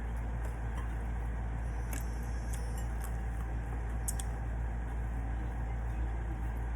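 A steady low hum underneath a few light metallic clicks and clinks of eating utensils against dishes, about two to four seconds in.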